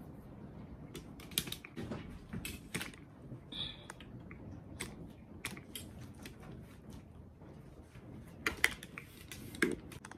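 Irregular light clicks and knocks from small plastic parts and cables being handled, with two louder knocks near the end.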